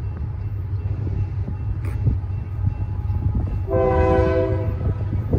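Union Pacific diesel freight locomotives approaching with a steady low rumble, and one air-horn blast of about a second, a chord of several tones, about two-thirds of the way in.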